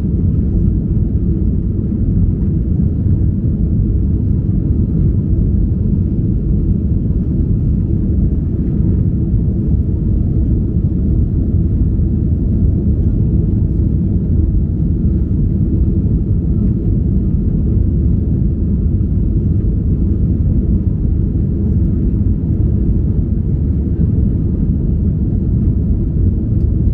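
Airbus A321 cabin noise in flight just after takeoff: a steady, loud, deep rumble of the jet engines and airflow, heard from a window seat.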